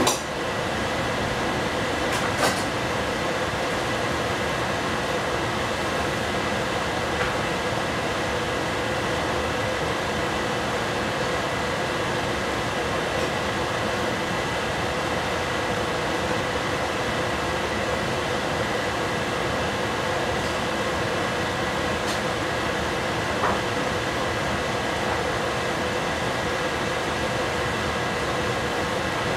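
Steady hiss and hum of a lidded stainless steel saucepan cooking over a lit gas burner, with a few faint ticks.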